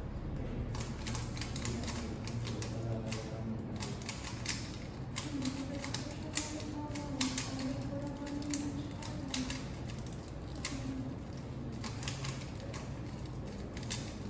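Rubik's cube being turned quickly by hand: a fast, irregular run of plastic clicks as its layers are twisted.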